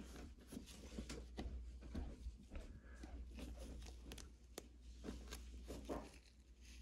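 Faint rustling and light crackles of a thin clear plastic card sleeve being opened and a trading card slid into it by gloved hands.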